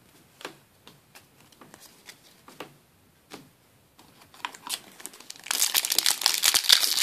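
Soft scattered clicks of trading cards being handled, then from about five and a half seconds in a Yu-Gi-Oh! Cosmo Blazer foil booster pack crinkling loudly as it is pulled from the box and handled to open it.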